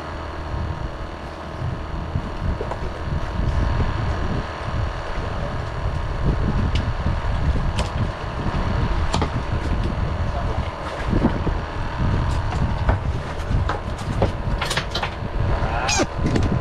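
Steady low rumble and wind buffeting the microphone on an open fishing boat at sea, with a faint steady hum and a few light clicks.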